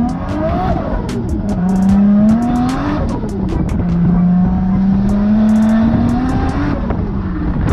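Toyota Chaser JZX90's turbocharged straight-six revving hard on track, heard from inside the cabin. The engine note climbs about two seconds in, drops, then holds and slowly rises before falling again near the end.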